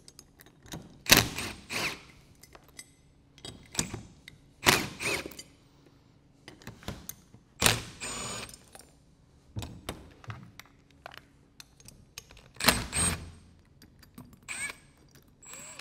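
Cordless drill driver running in several short bursts, backing the bolts out of the base of a Schmidt TeraValve metering valve, with clinks of the loose bolts and washers being handled between bursts.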